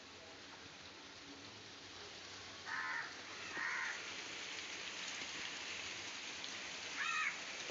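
Crow cawing: three short, harsh caws, two close together about three seconds in and one near the end, over a soft steady hiss.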